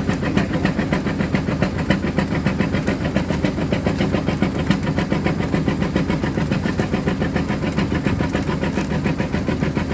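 Boat engine running steadily while trolling, with a fast, even pulse.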